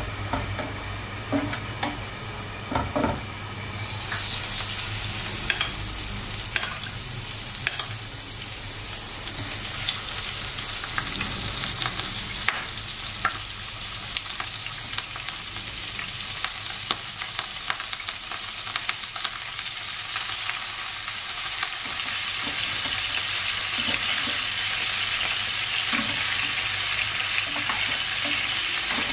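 Minced garlic sizzling in oil in a nonstick frying pan while a spatula stirs and scrapes, with scattered short knocks against the pan. About four seconds in the sizzle turns much louder, and it keeps building as pieces of pork belly fry in the pan.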